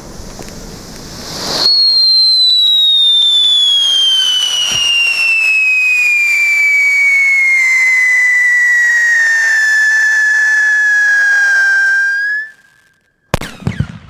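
Funke Scream 1 firework fountain: a hissing spray rises in loudness, then about two seconds in a loud whistle starts and falls steadily in pitch for about ten seconds before cutting off abruptly. About a second later comes a short, sharp crack.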